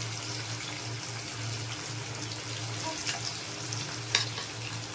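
Marinated chicken 65 pieces deep-frying in hot oil: a steady sizzle with fine crackles, and one sharp knock about four seconds in.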